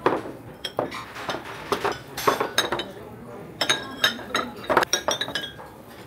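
White ceramic side-dish plates and bowls set down on a wooden table one after another, with sharp ringing clinks in quick clusters as they touch the table and each other.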